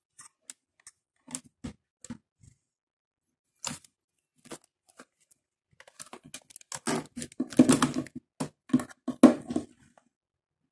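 Hands rummaging through small objects while searching for a micro SD card: scattered clicks and knocks with short rustling and crinkling, sparse at first and busier and louder in the second half.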